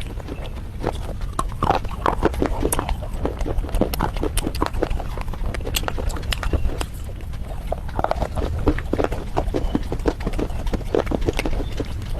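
Close-miked crunching and chewing of red slate bars and clay paste: rapid, irregular crisp cracks and clicks as the pieces are bitten and ground, over a steady low rumble.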